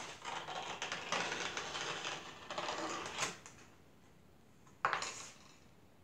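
Clay-cutting wire drawn through a block of clay along metal guide bars, a rasping scrape of many fine rapid ticks lasting about three and a half seconds. A single short clatter follows about five seconds in, as the wire tool is laid on the table.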